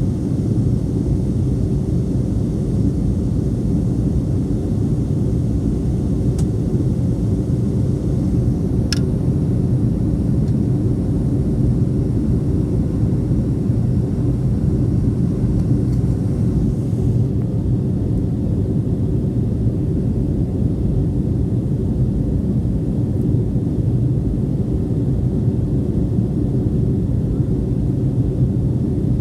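Steady low rumble of a Boeing 757-200's jet engines and airflow heard from inside the passenger cabin during the climb after takeoff. The higher hiss eases slightly about two-thirds of the way through.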